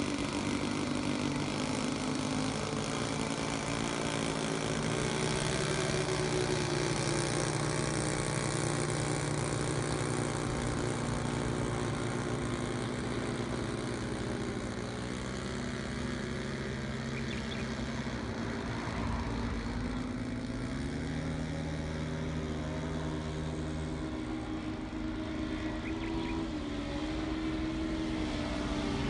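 Propeller engines of three radio-controlled scale warbirds (an Aichi D3A Type 99 carrier bomber, a P-47 Thunderbolt and a J2M Raiden) flying together. Their overlapping engine notes make a steady drone, and the notes rise and fall in pitch as the planes throttle, turn and pass.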